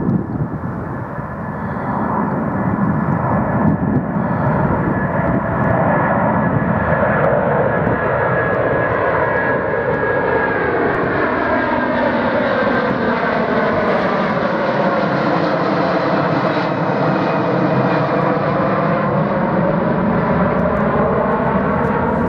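Airbus A330-243's two Rolls-Royce Trent 700 turbofans on climb-out after takeoff, a steady loud jet roar passing overhead, with a slow sweep in its tone as the aircraft goes over and away.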